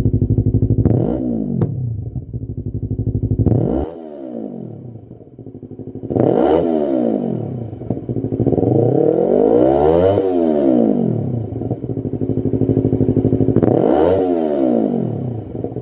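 Yamaha YZF-R3's 321 cc parallel-twin engine, breathing through a Lextek SP8C full exhaust system, idling and blipped about five times. Each rev rises and falls back to idle, and the longest and highest is near the middle.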